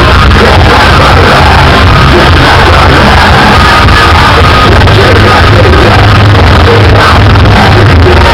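Live metalcore band playing at full volume in a concert hall, with distorted guitars, pounding drums and shouted vocals, recorded so loud that it is overloaded and distorted.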